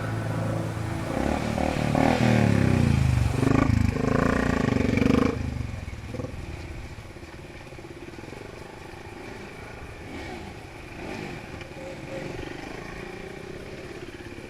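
Motorcycle engine revving, its pitch rising and falling. About five seconds in it drops abruptly to a much quieter, steadier running sound.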